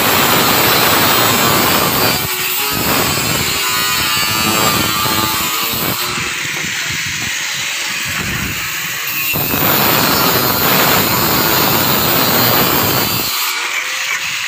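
Hand-held electric power tool working on corrugated steel deck sheets, running in two long stretches with a quieter spell a little after the middle.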